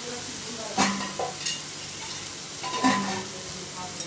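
Tomato-onion masala sizzling in a kadai over a high gas flame while a wooden spatula stirs it. The spatula knocks against the pan twice, about a second in and again near three seconds.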